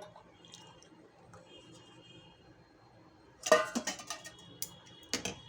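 Kitchen utensils clinking and knocking: a cluster of sharp clinks about three and a half seconds in, then a couple more near the end, with quiet in between.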